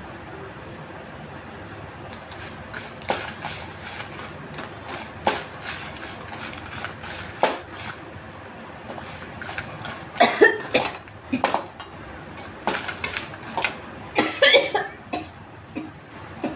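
Fits of coughing and sneezing set off by the fumes of vathal (sun-dried chillies) heating on the stove. A few single sharp clinks like a utensil on a pan come first, then two bursts of several coughs or sneezes in quick succession, about ten and fourteen seconds in.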